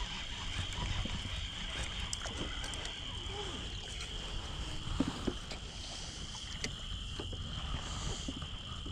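A steady, high-pitched chorus of frogs calling, over a low rumble, with a few faint ticks.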